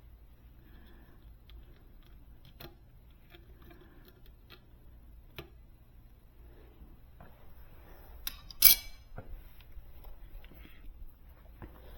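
Small handling noises from working on wiring by hand: faint clicks and rustling, with one sharp click about two-thirds of the way through that is the loudest sound.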